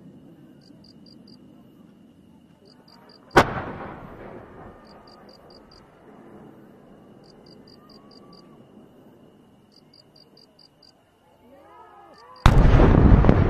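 Aerial fireworks shells exploding. A sharp bang about three seconds in fades out over a second or so. Near the end, brief wavering whistles are followed by a much louder, longer burst of a large shell that rolls on.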